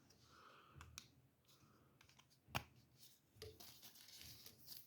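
Faint handling sounds of a power cord being unwound: a few light clicks and soft rustles, with one sharper click about halfway through.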